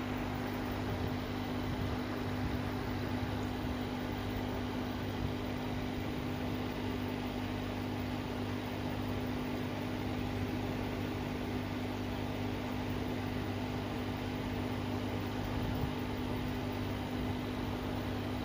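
Aquarium air pump running with a steady hum and hiss, feeding the tank's bubble curtain.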